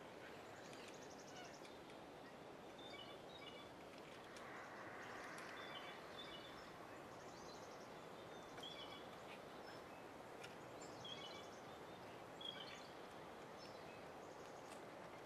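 Quiet outdoor background hiss with faint, scattered bird chirps and short buzzy trills every few seconds.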